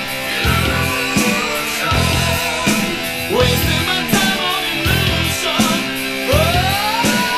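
Heavy metal recording with electric guitar and drums, steady beat throughout; near the end a note slides up and is held.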